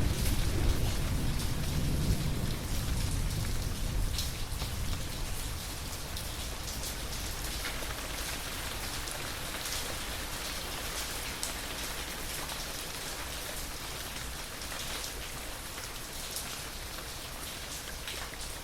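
Steady rain falling, with scattered individual drops ticking. A low rumble of thunder dies away over the first few seconds.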